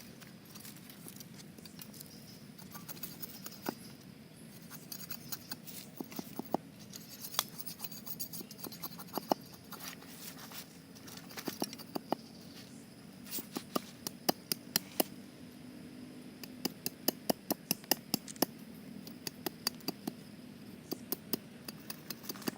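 A run of irregular sharp clicks and taps, some loud and some faint, bunching more densely in the second half, over a faint steady low hum.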